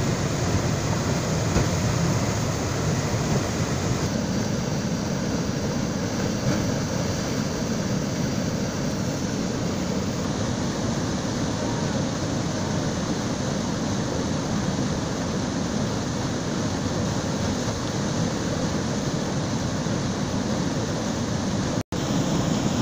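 Steady rush of whitewater pouring over a concrete weir and crashing into the pool below. It drops out for an instant near the end.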